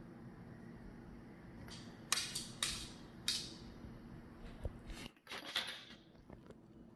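Spatula scraping while spreading buttercream: a few short scrapes and clicks from about two seconds in, and another cluster around five and a half seconds, over a steady low room hum.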